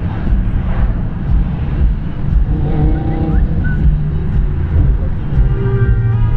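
BMW M5 E60's 5.0-litre V10, fitted with Dinan throttles, airbox and stage 2 ECU, running loudly under way, heard from inside the cabin over road rumble. About five seconds in, its note steadies into a clear held tone.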